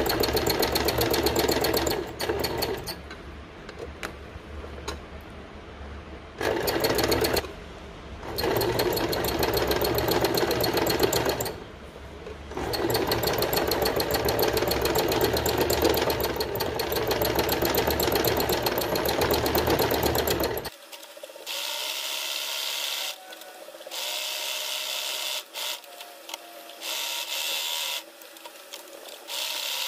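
Domestic sewing machine stitching free-motion embroidery, running in start-stop bursts of rapid needle strokes. About two-thirds of the way in the sound turns thinner, losing its low hum, and the bursts become shorter.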